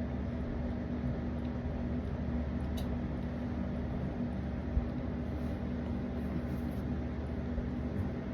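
Steady low hum of an idling car engine, with a faint click about three seconds in and a soft thump near the middle.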